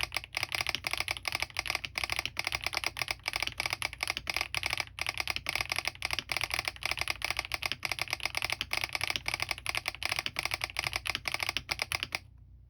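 Fast, continuous typing on a Smurve80 mechanical keyboard with lubed HMX Catmint linear switches, full foam, an aluminium plate and doubleshot PBT keycaps, its solenoid switched on and clicking with the keystrokes. The typing stops suddenly near the end.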